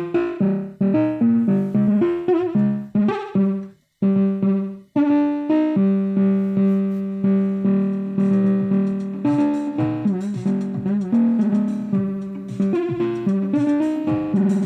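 Instrumental jam music: a stream of pitched notes that each sound and fade, in a keyboard-like tone, with a brief break about four seconds in before the notes resume with longer held tones.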